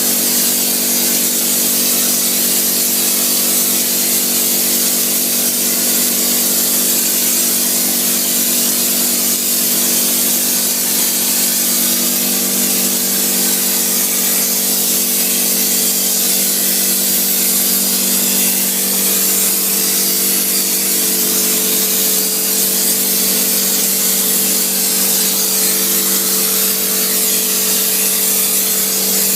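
Machinery running steadily: a loud, even hiss over a hum of several steady tones, with the hum changing pitch slightly about two-thirds of the way through.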